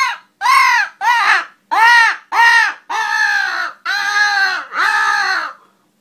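Hand-held wooden crow call blown to imitate crow caws: five short, quick caws about two a second, then three longer, drawn-out caws, each rising and falling in pitch.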